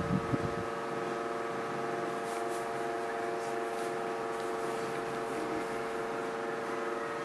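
Steady electrical hum of a room appliance, several constant tones held evenly, with a few faint soft ticks about two to four seconds in.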